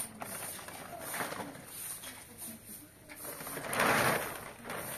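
Rustling swish of a large cloth sheet being lifted and shaken, rising to a loud rush about four seconds in, over faint low background sounds.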